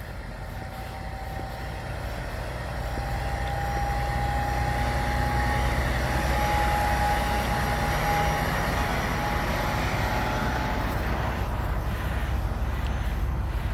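Semi-truck on the road with its engine rumble and tyre noise, growing louder over the first few seconds and then staying loud. A steady whine runs through the middle and fades out near the end.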